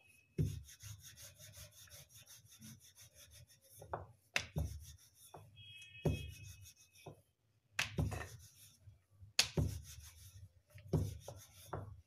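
Wooden rolling pin rolling out a round of dough on a granite surface: uneven back-and-forth rubbing strokes, with a few sharp knocks of the pin on the stone.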